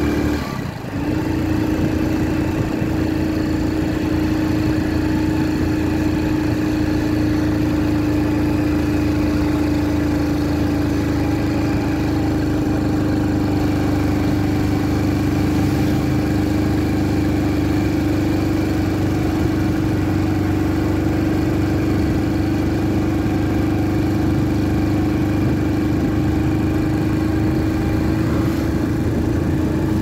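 Motorcycle engine running at a steady road speed, its drone holding one pitch, with a brief dip in level about a second in.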